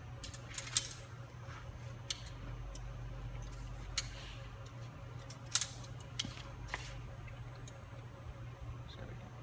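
Scattered clicks and snaps of a floor scrubber's squeegee assembly being handled as its squeegee blade is taken off, the sharpest about a second in and just past halfway, over a steady low hum.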